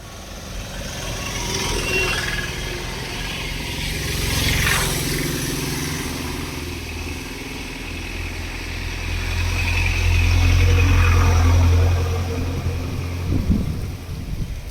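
A motor vehicle's engine running nearby with a steady low hum. It grows louder and is loudest about ten to twelve seconds in, then falls away.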